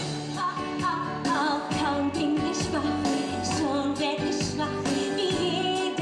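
A woman singing a musical-theatre song, lead vocal with band accompaniment.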